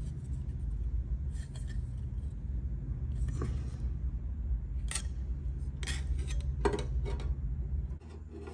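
Snipping and sharp metallic clicks of aluminium sheet being cut and handled, a handful of them in the second half, over a steady low hum that cuts off suddenly near the end.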